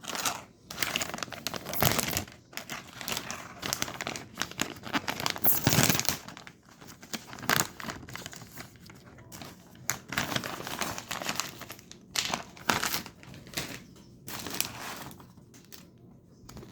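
Plastic candy packaging crinkling and tearing as it is handled and opened, in irregular bursts, loudest about two seconds in and again around five to six seconds in.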